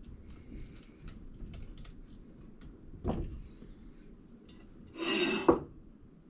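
A silicone spatula scrapes and stirs scrambled eggs in a nonstick saucepan, with a low thump about three seconds in. Near the end the pan scrapes against metal and knocks sharply once as it is moved off the stove grate.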